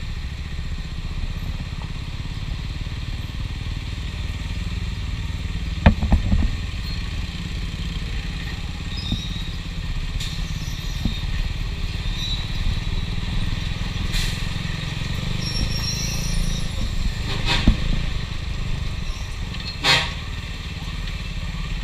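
KTM Duke 390's single-cylinder engine running at low speed through stop-and-go traffic, over the steady rumble of trucks and scooters close by. A loud knock comes about six seconds in, and two short horn beeps near the end.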